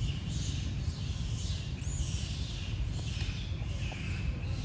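Outdoor ambience: a steady low rumble with short, high, hissing chirps repeating every half second or so.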